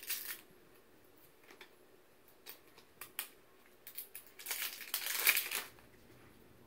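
Small plastic toy packaging being handled and opened by hand: scattered clicks and crinkles, with a longer, louder crinkling rustle about five seconds in.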